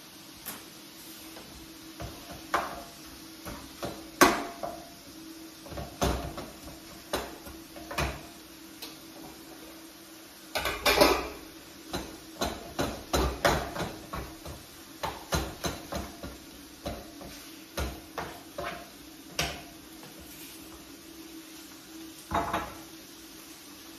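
A spatula knocks and scrapes in a frying pan as ground meat is stirred, in irregular clicks with a quick run of strokes around the middle. A steady low hum runs underneath.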